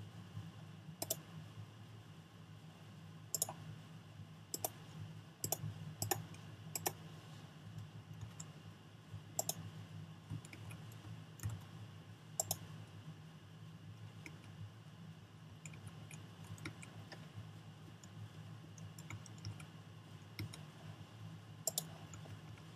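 Scattered clicks of a computer mouse and keyboard while editing a 3D model, loudest and most frequent in the first half, fainter later, over a steady low hum.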